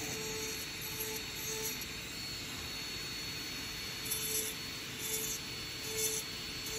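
Dental lab handpiece with a bur running at high speed, cutting a milled zirconia crown free of its disc. It gives a steady high whine and hiss, with a lower note that swells and fades every half second to a second or so.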